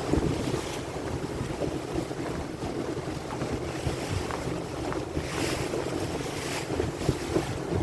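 A motor boat under way at sea: its engine runs with a steady low drone while waves wash and splash around the hull. Wind buffets the microphone in gusts, strongest about five to six and a half seconds in.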